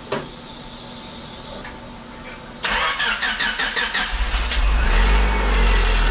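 Turbocharged Honda D16Y8 1.6-litre four-cylinder on its first start after the build. A click, then about two and a half seconds later the starter cranks in a quick rhythm for about a second and a half before the engine catches and runs, getting louder.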